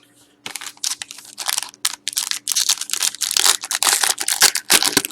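Plastic packaging of a trading-card pack crinkling and rustling as it is handled and opened, a dense run of sharp crackles starting about half a second in.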